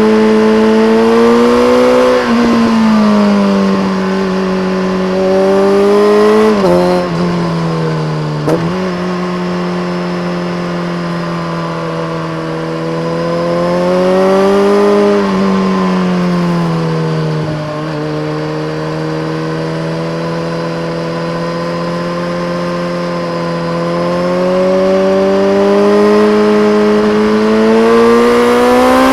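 BMW K1300R's inline-four engine through a full Akrapovic race exhaust with a dB killer, pulling under varying throttle. Its pitch swells and eases, with quick gear changes dropping the revs about six and a half and eight and a half seconds in.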